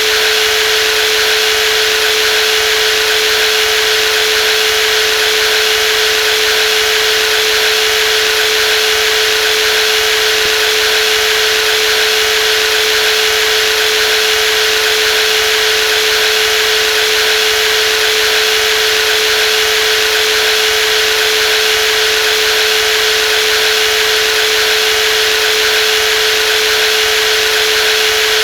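Brushless jigsaw running steadily at constant speed, with a steady whine over a even mechanical hiss.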